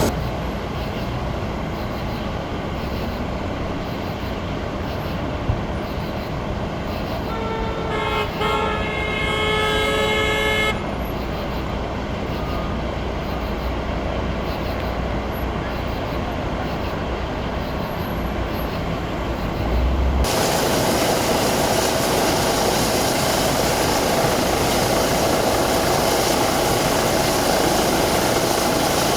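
Steady rumble of vehicles at a roadside scene, with a vehicle horn sounding one steady tone for about three seconds partway through. About two-thirds of the way in, the sound changes suddenly to a louder, brighter hiss.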